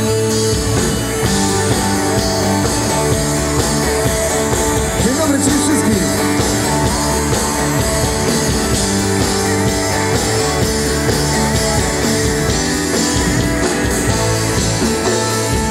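A live pop-rock band playing an instrumental passage on electric guitar, bass guitar, drums and keyboard, loud and continuous.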